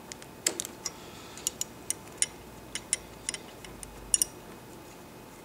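Light metallic clicks and ticks, about a dozen at uneven spacing, from the threaded throttle cable adjusters on a Harley-Davidson handlebar being turned down by hand to slacken the cables. They stop a little after four seconds in.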